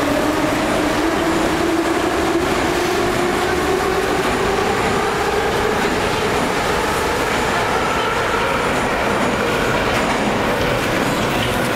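Metro train pulling out of the station: its traction motors whine, rising slowly and steadily in pitch as it gathers speed.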